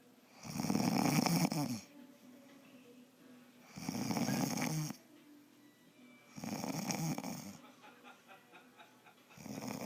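A woman snoring: four loud snores, each about a second long, coming about every three seconds, the last cut off by the end.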